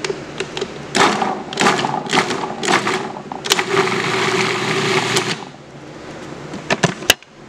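Food processor pulsed in several short bursts, about twice a second, then run steadily for about two seconds, its motor whirring as the blade chops chickpeas into a coarse crumb. A few sharp clicks near the end.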